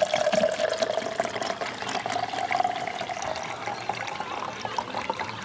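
Fizzy drink poured from a bottle into a pint glass: a steady pour whose tone rises slowly as the glass fills, with the fizz of the foaming head.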